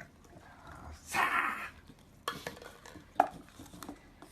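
A short rustling scrape about a second in, then a few sharp clicks, the loudest about three seconds in.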